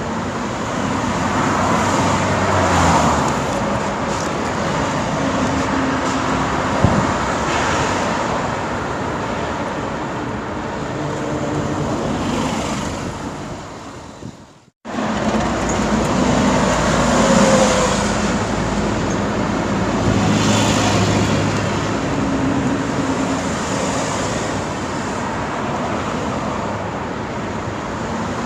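Busy road traffic: a steady stream of cars and other motor vehicles passing close by, engines and tyres swelling and fading as each goes past. About halfway through, the sound fades and cuts out for a moment, then comes straight back.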